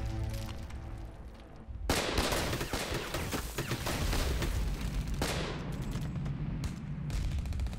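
Music breaks off, and about two seconds in heavy gunfire starts: many rifle and machine-gun shots overlapping, with a fast, even machine-gun burst near the end.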